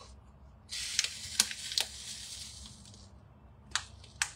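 A plastic spice packet crinkling and rustling as it is handled and opened, with a few sharp clicks. Two more sharp clicks near the end as a measuring spoon goes into the packet.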